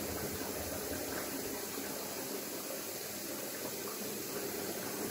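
Air bubbling steadily through the water in a bucket water-column back-pressure chamber of a homemade breathing aid, while water is poured in to raise the level and so the back pressure.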